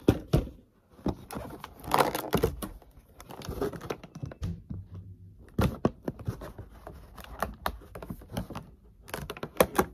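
Clear plastic toy packaging crinkling and clicking as it is handled and pulled apart, in irregular spells of sharp crackles with brief pauses.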